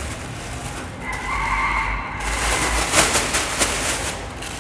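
Shoes being handled: a brief rubbery squeak about a second in, then scuffing and rustling with a few sharp taps.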